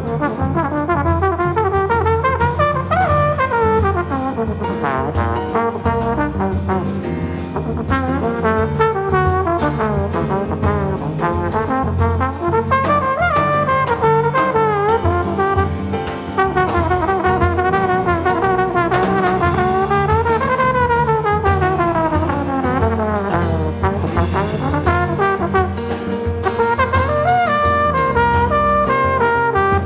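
Jazz trombone solo with long sweeping slides up and down in pitch, played over a rhythm section of piano, electric bass and drums.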